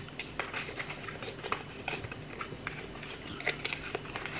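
Hands handling and opening a small cosmetic package: scattered light clicks, taps and rustles.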